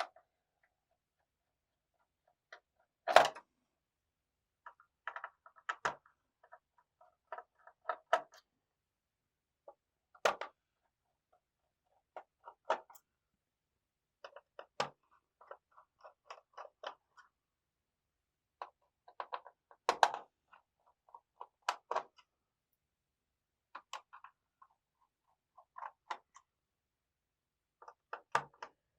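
Small screwdriver undoing the motherboard screws in an Asus X540LA laptop: scattered light clicks and ticks of the tool and screws. A few sharper clicks stand out, about three, ten and twenty seconds in.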